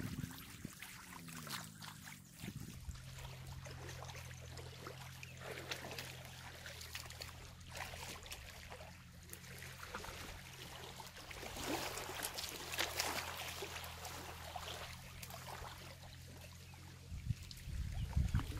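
Light trickling and small splashes of shallow water at the shoreline, with a steady low engine hum underneath that falls in pitch over the first two seconds, then holds, and stops shortly before the end.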